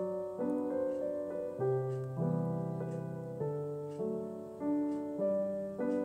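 Background piano music: a slow melody with a new note roughly every half second.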